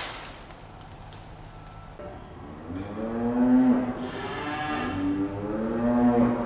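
Calf mooing: two long calls, the first about three seconds in and the second about five seconds in.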